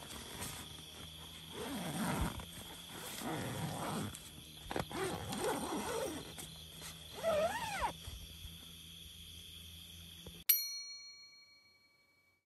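Several animal calls that bend up and down in pitch over a steady high drone, then a single bright chime about ten and a half seconds in, the loudest sound, which cuts off the background and rings away to silence.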